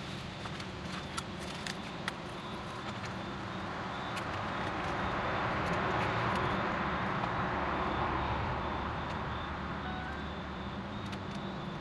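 A passing vehicle: a broad rumble swells over several seconds, peaks in the middle and fades again, with a few faint clicks over it.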